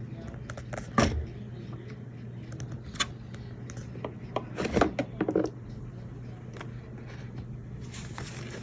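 Handling noises from unboxing: a sharp knock about a second in, another near three seconds, and a cluster of scraping and rattling clicks around five seconds, over a steady low hum. The vacuum cleaner is not running.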